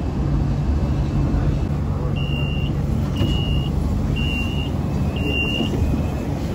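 Subway train car with a steady low rumble and hum. About two seconds in come four evenly spaced high electronic beeps, each about half a second long and a second apart: the car's door warning signal as the doors work at a station.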